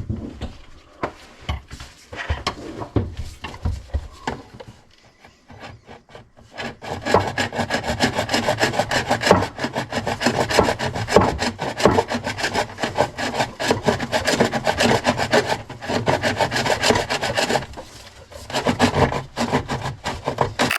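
Rapid, repeated rasping and scraping, like sawing or filing, sparse at first and then dense and steady from about seven seconds in, with a short pause near the end.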